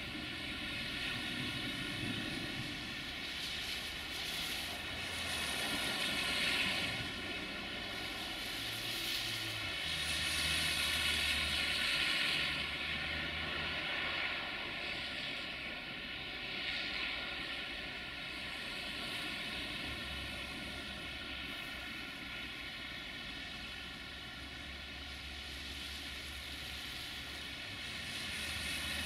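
Multirotor camera drone's motors and propellers humming steadily, a whine of many even tones that swells and eases a little as it flies.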